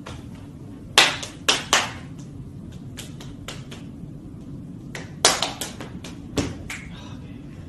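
Hands slapping and clapping together in a fast, elaborate two-person handshake: a string of sharp smacks, with a loud cluster about a second in and another around five seconds in.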